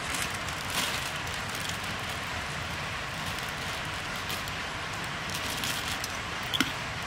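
Crinkling of aluminium-foil pouches and a ladle scooping curry from a steel pot, with a sharp clink about six and a half seconds in, over a steady outdoor hiss.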